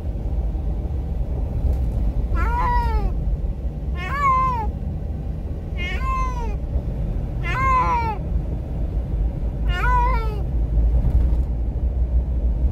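Orange domestic cat meowing from inside a plastic pet carrier, five drawn-out meows about two seconds apart, each falling in pitch, over the steady low rumble of a moving car. The cries are an anxious cat's distress at the car ride.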